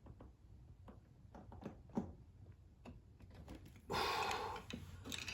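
Faint clicks and light knocks of metal parts and hand tools being handled, then a louder rasp lasting about a second, about four seconds in, as a tight valve is worked out of a small engine's cylinder head.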